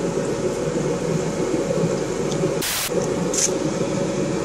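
Steady low rushing background noise, with a brief sharp hiss about two and a half seconds in and a faint click just after.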